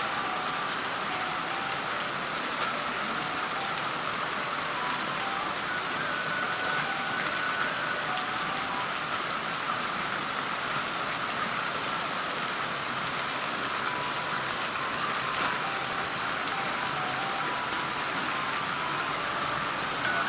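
Heavy rain falling steadily: an even, unbroken hiss with no thunderclap.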